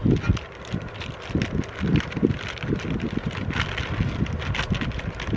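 Aluminium foil crinkling and rustling in irregular bursts as a foil-wrapped package is handled and unwrapped, over uneven low rumbling of wind on the microphone.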